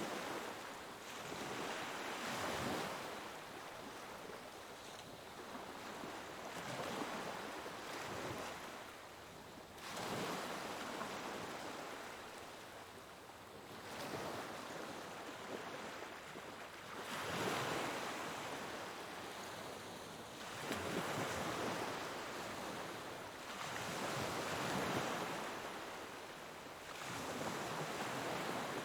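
Sea waves breaking and washing on a shore, the surf swelling and fading in repeated surges every few seconds.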